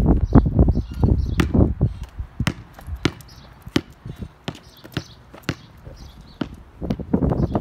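Basketball bouncing on an asphalt driveway as it is shot and dribbled: a string of irregular sharp knocks.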